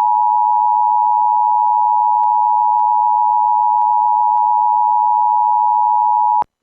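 Emergency Alert System two-tone attention signal: a loud, steady dual tone held for several seconds that cuts off abruptly near the end. It marks the start of an emergency alert, here a severe thunderstorm warning.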